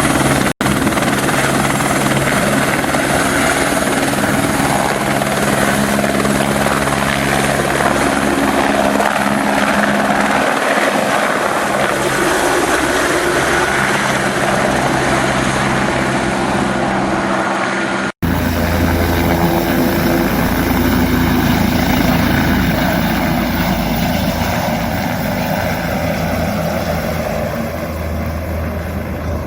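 Helicopter rotor and turbine running steadily. About 18 seconds in it cuts sharply to another helicopter recording with a deeper rotor hum, which slowly fades toward the end.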